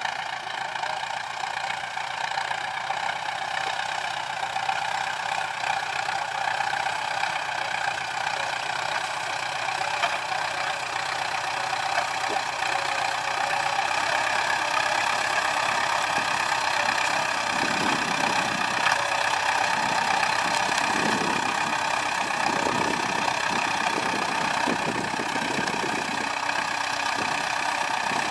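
Ford 6610 tractor's four-cylinder diesel engine running steadily, its note starting to waver in the last ten seconds or so.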